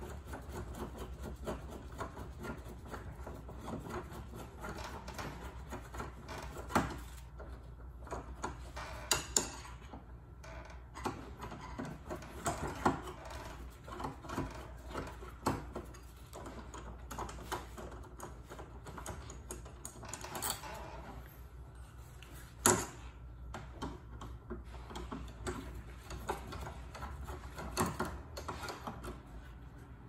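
Small screwdriver working at a metal Kwikset keyed-entry doorknob during disassembly: irregular clicks, taps and light scrapes of metal on metal, with a few sharper clicks, the loudest about two-thirds of the way through.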